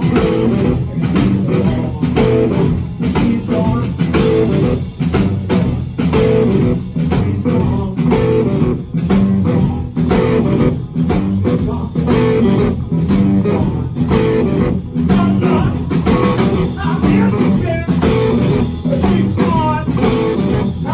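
Live electric blues played loud by two electric guitars and a drum kit, the drums keeping a steady beat under a repeating guitar riff.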